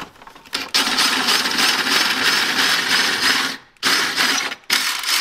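DeWalt cordless drill boring through a car's painted sheet-metal body panel with a twist bit. It runs steadily for about three seconds from just under a second in, stops, then runs in two short bursts.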